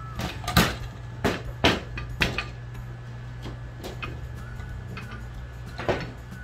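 A string of sharp, irregular knocks and clicks, most of them in the first two and a half seconds and one more near the end, over a steady low hum.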